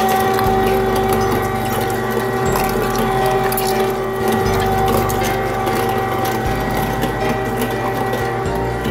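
Electric meat grinder's motor running steadily as raw chicken is fed through it. It gives a constant hum with several steady tones, and the low drone shifts a few times as the pieces go through.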